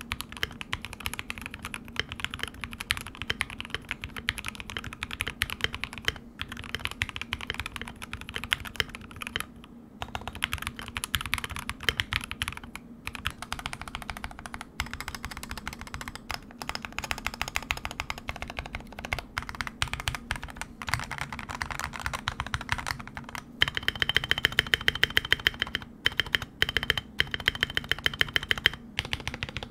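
Typing test on a custom GK61X wood-case 60% keyboard with lubed C³Equalz Tangerine linear switches and Akko ASA-profile keycaps: a continuous, fairly high-pitched clacking of keystrokes, which grows denser and louder over the last few seconds.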